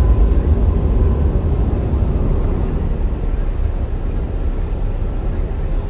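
Steady low rumble of a ferry's engines running while it lies alongside a wharf.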